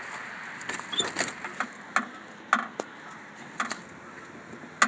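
Scattered clicks and knocks from a pickup truck's rear door being unlatched and swung open, with hand-handling noise, over a faint steady hiss.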